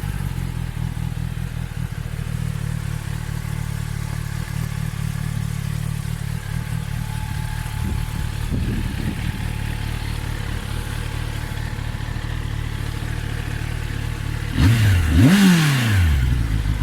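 2024 Kawasaki ZX-10R's inline-four on its stock exhaust idling steadily, with a short throttle blip about halfway through and a sharp rev near the end whose pitch climbs and falls back to idle.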